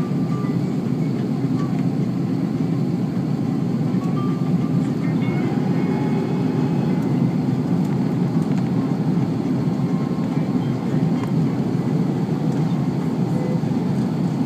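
Steady engine and airflow noise inside the cabin of an Airbus A330-300 airliner in flight, an even low rumble that does not change.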